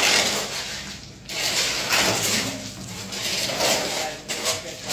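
Metal blade of a long-handled hand tool scraping and dragging wet concrete across a floor, in repeated strokes about a second long.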